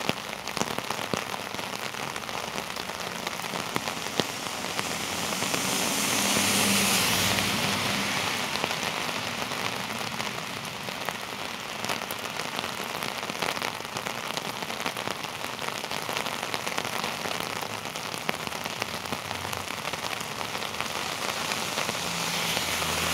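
Heavy rain falling on a city street and sidewalk: a steady hiss with scattered drip taps. The hiss swells louder for a couple of seconds about six seconds in.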